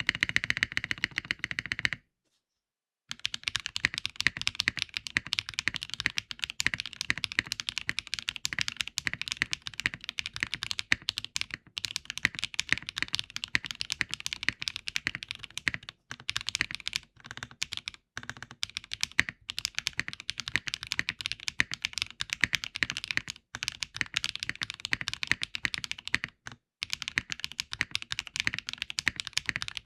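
Fast, continuous typing on an Eave65 mechanical keyboard with HMX Azure switches and Fruit Prism keycaps. The keystrokes stop for about a second near the start, then carry on with only a few brief pauses.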